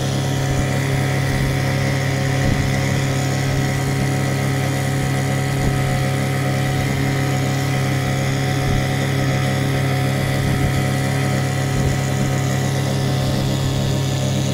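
Small outboard motor running at a steady, even speed, driving a boat under way.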